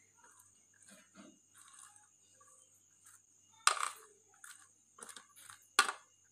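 Shredded cabbage being tipped and pushed off a plate into a steel tray, with faint soft rustling and two sharp taps about two seconds apart, one a little past halfway and one near the end.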